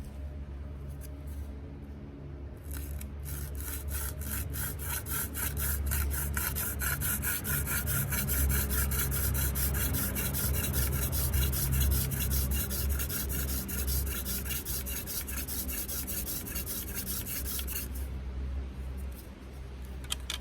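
Hand drill friction fire: a cattail spindle spun back and forth between the palms, its tip rubbing in a dry velvetleaf stem hearth in a fast, even rhythm. It starts about three seconds in and stops near the end.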